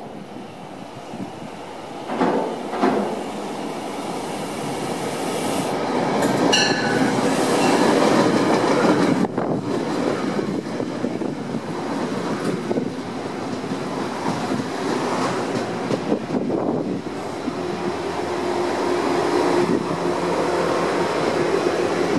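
Metro-North passenger train of Shoreliner coaches approaching and passing close by, its running noise growing loud as it nears and staying loud while the coaches go past. A brief high-pitched ringing tone comes about six and a half seconds in.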